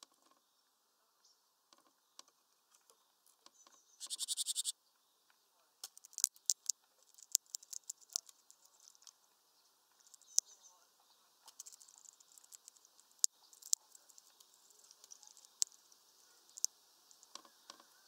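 Sharp, irregular taps and clicks of a great tit pecking at seed on a wooden feeder perch, with a brief fast rattle about four seconds in.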